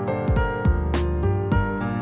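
Background music: sustained instrumental chords over a bass line, with a steady beat of percussive strikes about three times a second.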